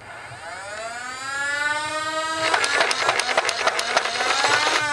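Nerf Elite Rapidstrike CS-18 overvolted on a 9-volt battery: its flywheel motors spin up in a rising whine. About two and a half seconds in, the blaster fires a fast burst of darts, a quick run of clicks over the whine. The whine starts to fall away right at the end.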